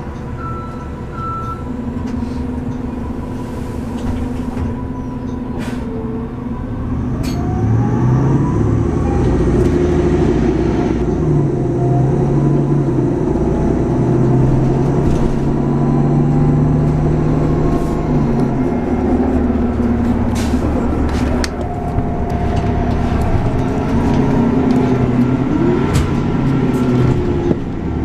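Nova Bus LFS driveline, a Cummins Westport ISL-G natural-gas engine with an Allison B400R automatic transmission, running under way as heard from inside the passenger cabin. The engine note rises and steps in pitch as the bus accelerates, with short clicks and rattles from the cabin.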